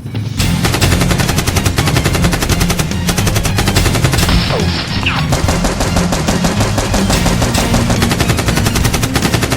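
Sustained rapid automatic gunfire, many shots a second, starting about half a second in.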